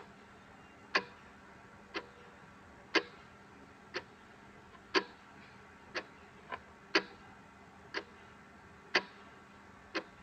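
Clock ticking once a second, the ticks alternating louder and softer in a tick-tock pattern, with one extra soft tick about six and a half seconds in, over a faint steady background hiss.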